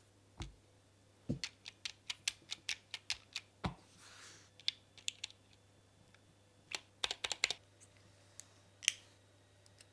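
Keys of a mechanical keyboard being typed on: sharp clicks in irregular bursts of several quick strokes, with pauses between them and a short soft swish near the middle.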